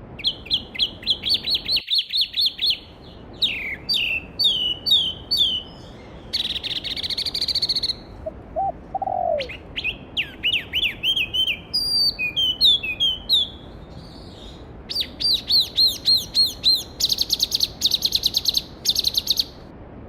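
A songbird singing phrase after phrase of rapid high chirps, some phrases turning into buzzy trills, with short pauses between them. A stream runs steadily underneath, and a second bird gives one short, lower call near the middle.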